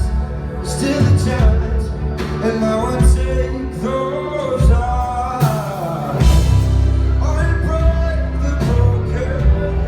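Live rock-pop band playing with sung vocals: sustained chords, bass and drums, with the low end dropping away briefly and the band coming back in heavier about six seconds in.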